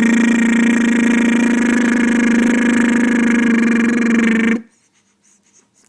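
A man's vocal motorboat noise: a lip trill buzzed on one steady low pitch, made to soothe a crying baby. It cuts off suddenly about four and a half seconds in.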